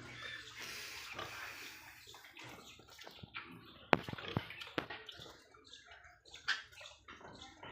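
Water splashing and sloshing, with a few sharp knocks about four seconds in.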